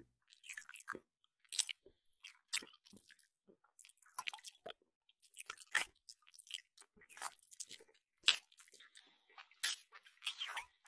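Faint, sparse crackles and clicks at irregular intervals, with silence between them.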